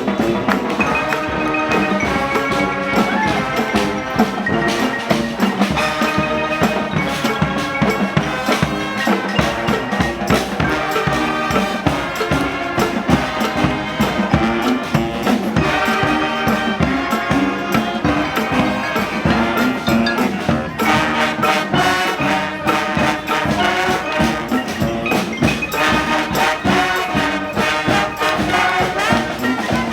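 A brass band plays a New Orleans-style brass-band tune live: horn lines over a steady drum beat. The horns grow brighter and fuller about two-thirds of the way through.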